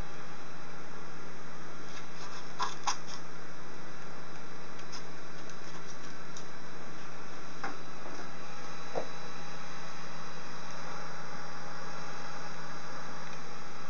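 Vacuum cleaner running steadily, drawing air through a 3D-printed flat nozzle on its corrugated hose. A few short clicks and taps from handling the nozzle come along the way.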